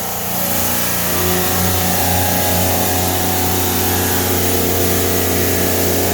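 Helios Cut 500 CNC milling machine running its milling program, spindle turning the cutter: a steady machine hum with a regular pulse, swelling in the first second as the override is turned up, then holding steady.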